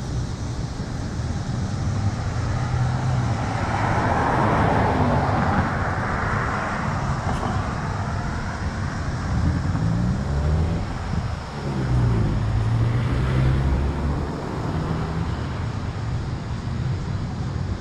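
Street traffic: a car passes with a swell of tyre noise about five seconds in, and later a vehicle's engine hum sweeps down and back up in pitch as it goes by, around eleven to thirteen seconds in.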